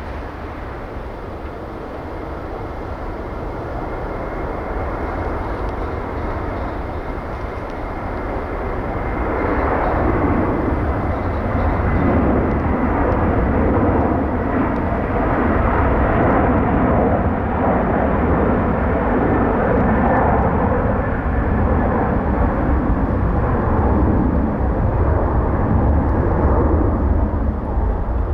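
Jet airliner's engines at takeoff power on the takeoff roll, a dense jet noise that grows louder about ten seconds in and then holds steady and loud. Under it is a steady low rumble of wind on the microphone.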